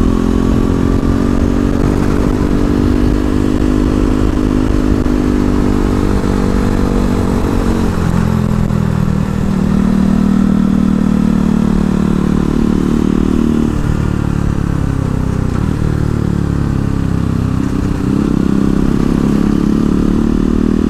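KTM Duke's single-cylinder engine running as the motorcycle is ridden at about 45 km/h, its note rising and falling with the throttle. The pitch drops about eight seconds in and shifts up and down again later.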